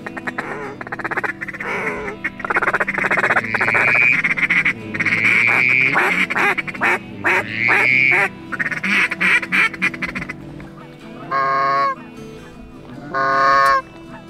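Goose calling from a hand-held goose call: a fast, choppy run of clucks and honks, then two long drawn-out honks near the end.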